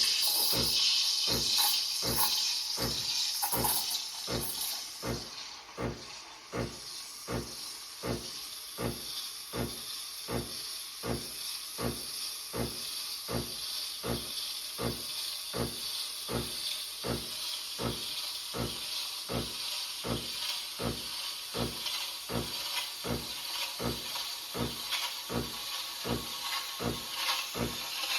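Espresso machine steam hissing loudly, dying down over the first few seconds to a quieter steady hiss, with a steady low pulsing about one and a half times a second throughout.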